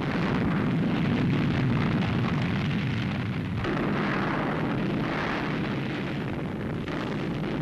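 Volcanic eruption rumble: a dense, continuous rumbling noise with crackling through it. It changes abruptly about three and a half seconds in.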